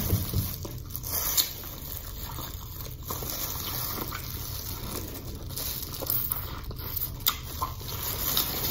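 Close-up wet chewing and lip-smacking of seafood-boil shrimp, with the crinkle of plastic food-handling gloves and scattered small clicks as the shellfish is pulled apart.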